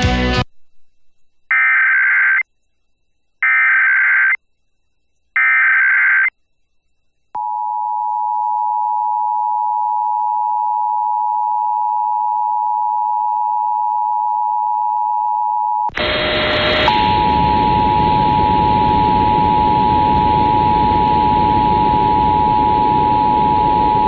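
Emergency Alert System test on FM radio: music cuts off, then three bursts of the SAME digital header's data tones about a second apart, followed by the steady two-tone EAS attention signal. About halfway through, a hiss comes in under the tone, which drops out for a moment and then carries on.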